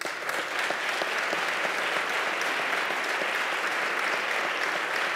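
Applause from a large seated audience. It breaks out at once and holds at a steady level.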